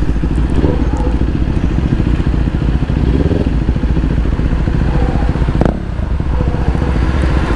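Kawasaki Ninja 400's parallel-twin engine running steadily at low speed in slow traffic. A sharp click comes about three-quarters of the way through, after which the sound eases slightly.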